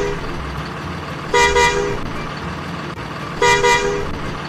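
Bus horn sounding short two-tone toots about every two seconds, the middle one a double toot, over a steady low engine rumble.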